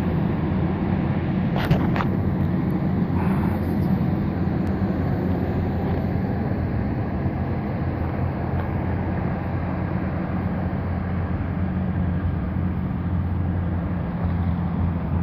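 Steady low rumble of vehicle engine and road noise as a tractor-trailer moves past, with a couple of brief clicks about two seconds in.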